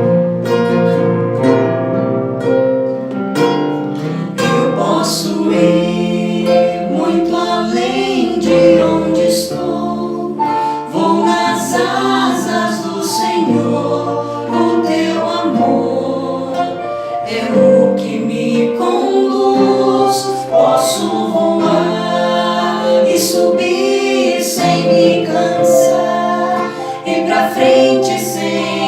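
Music: a worship song with singing over instrumental accompaniment.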